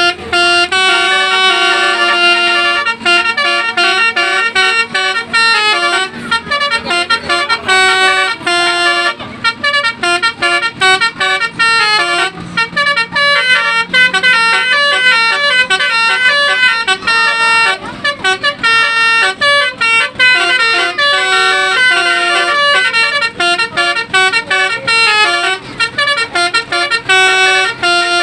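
Basuri telolet horn, a multi-trumpet musical bus horn, playing a fast melody of short notes.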